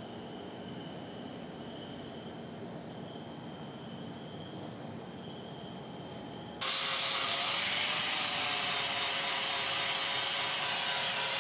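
A quiet background with faint steady high tones. About six and a half seconds in, it cuts abruptly to an angle grinder running against steel: a loud, steady hiss with a constant whine. The disc is grinding the face of a C-purlin roll-forming cutting blade to level it, repairing a blade that had been jamming.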